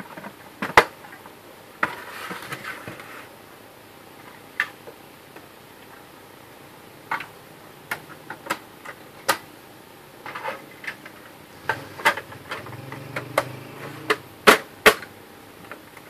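Plastic cover panels of an HP LaserJet P1102 laser printer being fitted and snapped into place by hand: a dozen or so irregular sharp clicks and knocks of plastic on plastic, with some scraping and rubbing between them.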